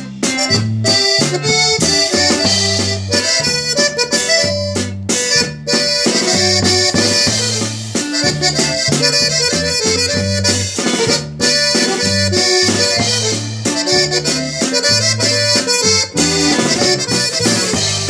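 Norteño-style instrumental music: an accordion plays the melody over low bass notes alternating in a steady beat, the instrumental introduction to a corrido.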